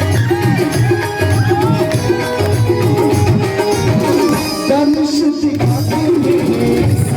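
Live Indian devotional stage music: hand drums keep a steady rhythm under a wavering melodic line.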